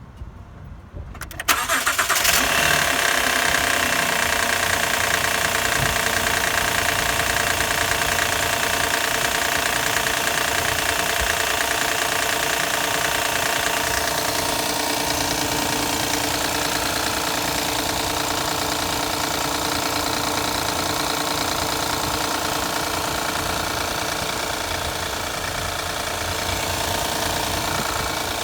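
Vehicle engine cold-started after being parked overnight in cold weather: it catches about a second in and settles into a steady, loud idle carrying the cold-start noise that the owner says goes away once the engine warms up. The higher-pitched part of the sound eases off about halfway through.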